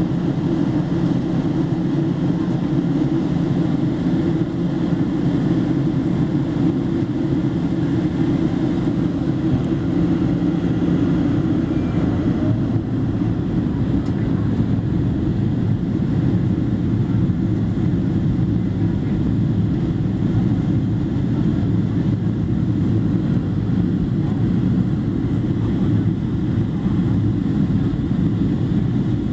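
Steady cabin drone of a Boeing 737-700 descending toward landing: its CFM56-7B turbofan engines and the airflow over the fuselage, heard from a window seat over the wing. A faint low hum with a few steady tones fades out about twelve seconds in.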